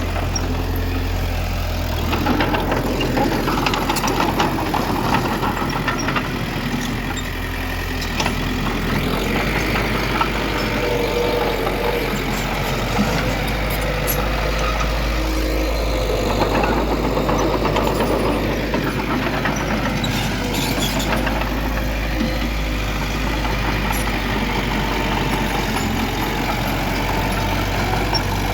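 Diesel engines of heavy earthmoving machinery (bulldozer and dump truck) running steadily. The engine note shifts a couple of times and there are occasional sharp clicks.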